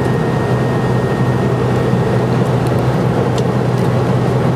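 Steady airliner cabin noise: a constant low drone of the engines and air, with a few faint ticks in the middle.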